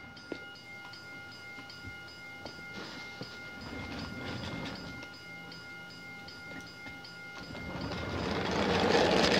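Toy railroad crossing signal sounding its electronic train-crossing effect: steady ringing tones with about three ticks a second. A rushing train-like noise swells louder toward the end.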